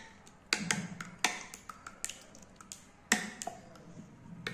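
Metal spoon beating egg in a ceramic bowl, clinking and tapping against the bowl in irregular strikes. The loudest strikes come about half a second in, at about a second and a quarter, and just after three seconds.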